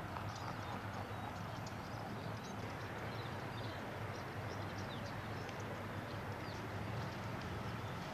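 Outdoor ambience: many short, high bird chirps scattered over a steady low hum.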